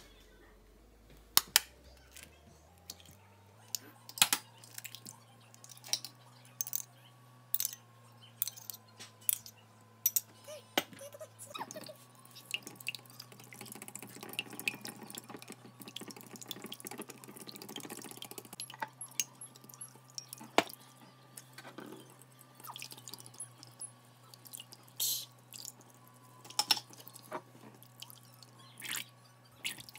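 Wire whisk beating eggs in a glass bowl: sharp clinks of metal and shell against the glass throughout, and quick wet whisking that thickens about halfway through.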